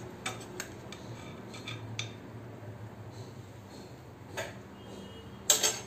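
Metal tongs clicking against the side of an aluminium cooking pot, a few light clinks spread out, then a louder clatter just before the end.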